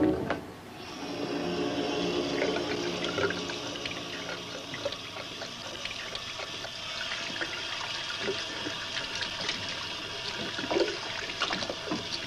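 Water running from a tap into a porcelain sink while hands are rinsed under it, with small splashes throughout. A brief loud orchestral chord cuts off just as it begins, before the water starts about a second in.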